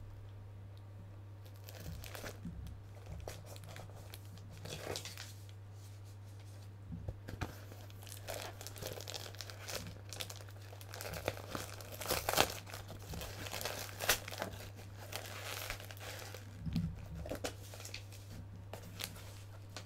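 Cardboard shipping box being torn open by hand: irregular tearing, crinkling and crunching of cardboard, with louder rips around the middle and again near the end. A steady low hum runs underneath.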